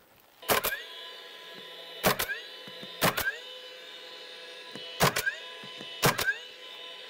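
Cordless roofing nailer driving nails into the first course of asphalt shingles: five sharp shots spaced one to two seconds apart, each followed by a brief rising whir. The tool's electric motor whines steadily between shots.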